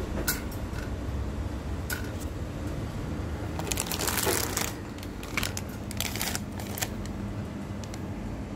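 Clear plastic bag of rabbit pellets crinkling and rustling as it is handled, with a dense burst of crackling about four seconds in as pellets are tipped out of it, and another shorter burst about six seconds in. A low steady hum runs underneath.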